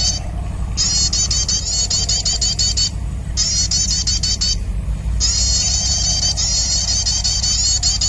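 Bird-lure call played from a speaker: rapid, high, twittering chirps repeating in a fast loop, broken into three bursts with short pauses about three and five seconds in. A steady low rumble lies underneath.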